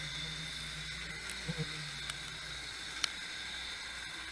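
Steady hiss and a faint high electronic whine from an underwater camera recording inside its housing, with a few short clicks between one and two seconds in and a sharper click about three seconds in.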